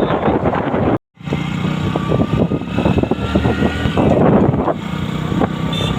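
Riding noise on a moving motorcycle: the Hero Splendor+'s 100 cc single-cylinder engine running steadily at road speed under wind and road noise. The sound cuts out briefly about a second in.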